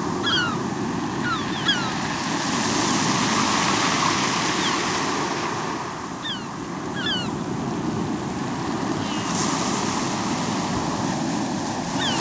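Small waves breaking and washing up a shingle beach of rounded pebbles: a steady surf hiss that swells and eases, loudest a few seconds in and again at the end. Short high chirps come now and then.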